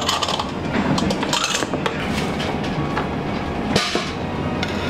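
Metal ladle clanking against a steel wok, several irregular strikes, over a steady rush of gas burner and kitchen noise.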